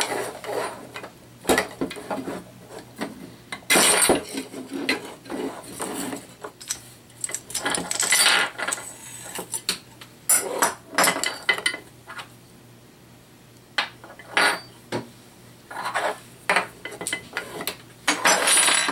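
Irregular clicks, clacks and scrapes of hard plastic and metal airsoft rifle parts being handled and set down on a table, as the gearbox of a DBoys M4 CQBR SD is worked out of its lower receiver.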